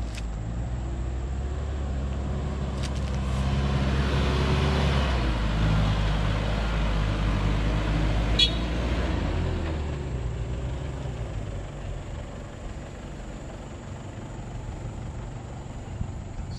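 Double-cab pickup truck's engine running as it drives slowly past on a dirt track, growing louder about four seconds in and fading away after about ten seconds. A short high squeak comes near the middle.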